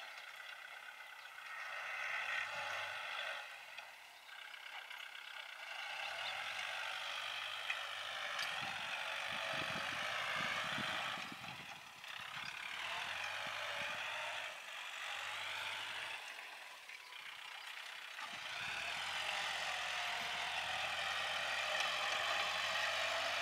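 Kubota L4708 tractor's 47-hp diesel engine running while it works the field with a tillage implement, its note rising and falling with the load.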